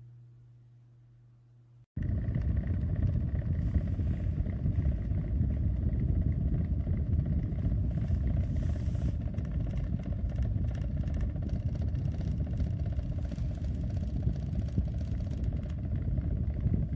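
Pelonis 20-inch box fan running with a loud rumbling clatter that starts abruptly about two seconds in, after a faint steady hum: a sign that the fan is hitting something near the top of its housing.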